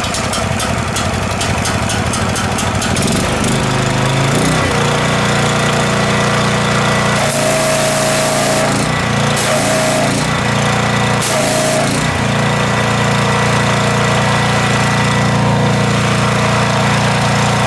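The 18-horsepower motor of a pressure washer starts up roughly, then settles into a steady run, picking up speed a few seconds in. Three times, a burst of high-pressure spray hiss comes as the wand is triggered, and the engine note dips under the pump's load each time.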